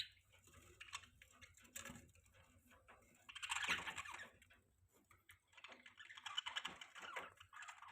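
Budgies chattering in rapid, clicky warbles, in a burst about three seconds in and a longer stretch from about six seconds in.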